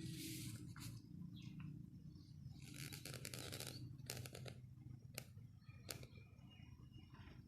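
Sharp clicks and knocks with two brief scraping rasps, from plumbing fittings and tools being handled, over a low steady hum.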